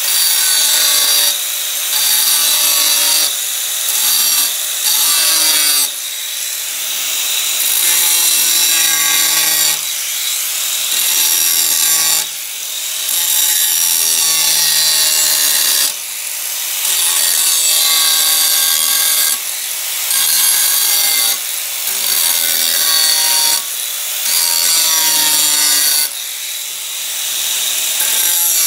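Angle grinder with a cut-off wheel cutting through a steel circular saw blade: a loud grinding whine, broken every couple of seconds by short dips as the wheel lifts out of the cut and goes back in.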